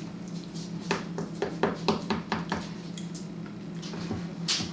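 Metal slotted spatula scraping and clicking against a glass baking dish as a slice of baked casserole is cut and lifted out: a quick run of scrapes about a second in, then a sharper knock near the end.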